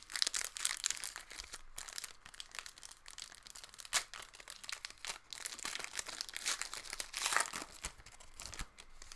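Foil wrapper of an Upper Deck Exquisite Collection hockey card pack crinkling and tearing as it is peeled open by hand, loudest about seven seconds in.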